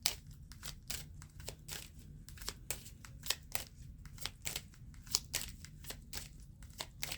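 Cards being handled and shuffled: a string of light, irregular snaps and clicks, a few a second, over a faint low hum.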